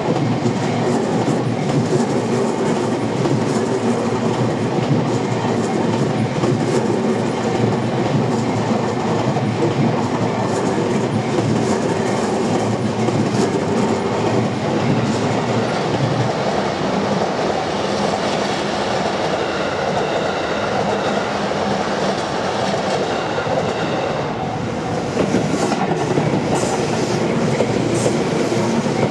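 A train passing close by, its wheels clattering over the rail joints in a loud, steady rush, with a few sharper clacks near the end.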